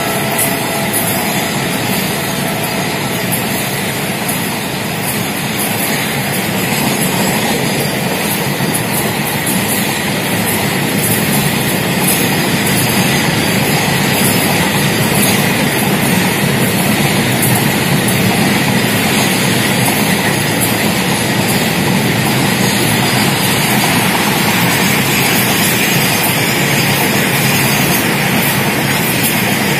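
Double-stack container freight wagons rolling past close by: a steady rumble and clatter of steel wheels on the rails. The last of a train horn's note dies away about a second in.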